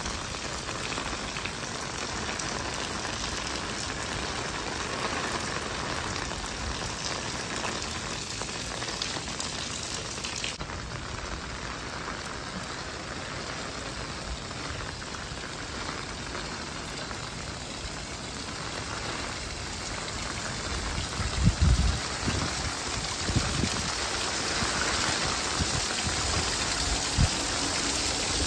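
Heavy rain falling on stone paving, a steady hiss of splashing drops. A few short low thumps come about three-quarters of the way through.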